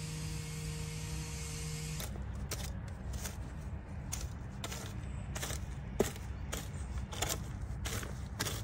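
A long-handled garden tool working soil in a vegetable bed: repeated scraping strokes, about one or two a second, with one sharper click about six seconds in. A steady low hum is heard before the strokes begin.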